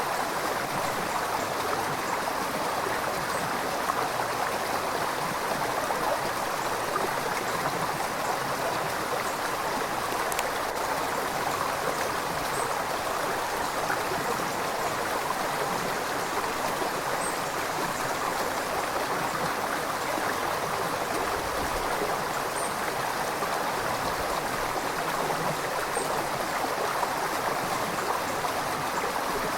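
River water running steadily over rocks, an even rushing and gurgling.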